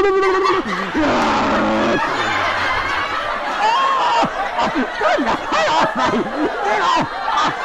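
Voices laughing and squealing playfully, after a long held cry that slides down in pitch about half a second in.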